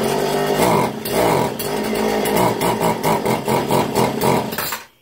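Small two-stroke engine running unevenly, its pitch surging up and down, then stopping suddenly near the end. Its carburettor's low-speed mixture screw has just been backed out a quarter turn, and it runs only a little better.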